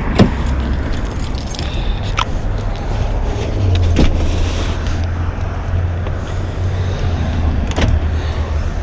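Car keys jangling with a few sharp clicks, over a steady low rumble.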